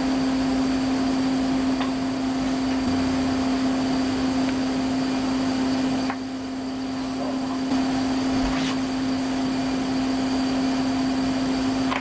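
Steady machine hum with one constant low tone, dipping slightly in level about six seconds in.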